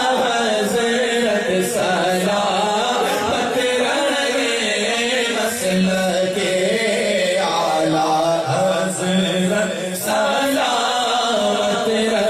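Islamic devotional chant: a voice sings a wavering, ornamented melody without break.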